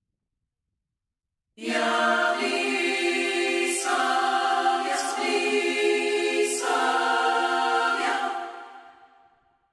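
A cappella choir singing slow, sustained chords with a few sung consonants. It starts abruptly after a second and a half of silence, shifts chord twice, and fades out near the end.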